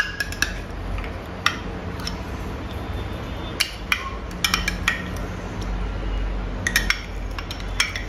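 Steel spoon clinking against glass containers as mayonnaise is scooped out of a glass jar into a glass mixing bowl: a dozen or so sharp, irregularly spaced clinks.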